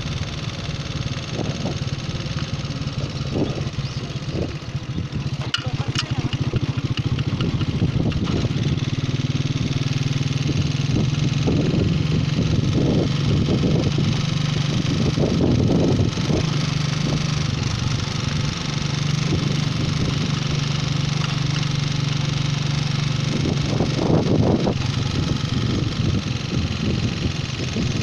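Motorcycle engine running steadily while riding along a paved road, its note rising slightly about a third of the way in and then holding, with wind rushing over the microphone.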